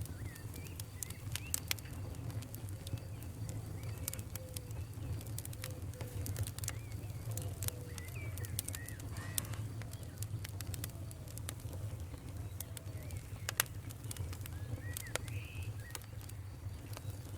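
Wood fire burning in a fireplace, with frequent sharp crackles and pops over a steady low rumble. Faint short whistling chirps come and go through it.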